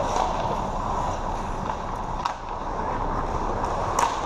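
Ice skate blades scraping and gliding over the rink ice during a hockey game, with scattered light clicks of sticks and a sharp crack about four seconds in.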